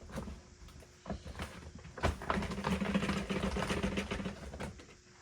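Dyson Cinetic Big Ball's dust bin being emptied: a few clicks and knocks, then about two and a half seconds of dense rattling and clattering as the debris is knocked out of the bin.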